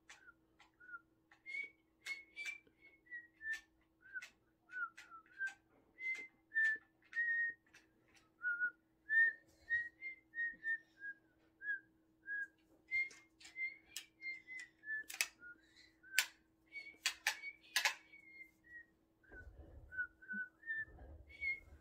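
A person whistling through pursed lips: a long run of short notes that wander up and down in pitch, mixed with sharp clicks, the loudest clicks coming in a cluster about three-quarters of the way through.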